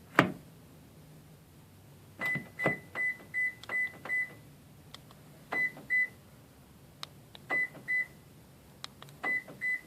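Toyota Prius warning beeper sounding in short groups at one steady pitch: a run of about six quick beeps, then three pairs of beeps, with sharp clicks as the door handle is pulled on a door whose lock is faulty and will not open. The loudest is a single sharp click just after the start.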